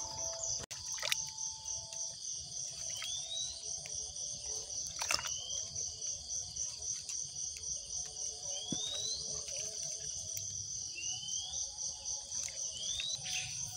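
Insects chirping in a steady, evenly pulsed high trill, about four pulses a second. About five short rising chirps from another animal cut in now and then.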